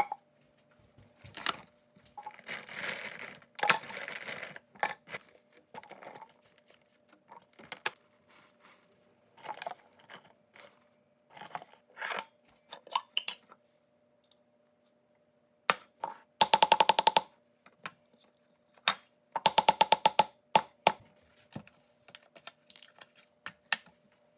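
Kitchen food-prep handling: plastic containers and a jar set down and picked up on a stone counter, with clicks, knocks and rustling as fruit and spinach go into a plastic blender cup. Twice, blueberries are poured into the cup, each a rapid rattle about a second long. A faint steady hum runs underneath.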